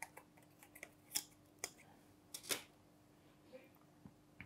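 Faint small plastic clicks and taps, about half a dozen spread out, from a microSD card being handled and slid out of its SD card adapter.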